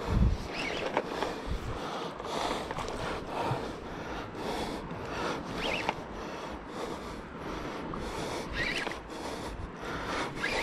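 Shallow seawater sloshing and splashing around wading legs, with rubbing and scraping handling noise on the camera and a low thump right at the start.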